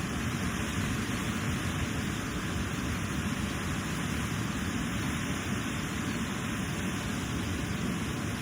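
Rushing water of the Elk River, a steady even rush with no breaks.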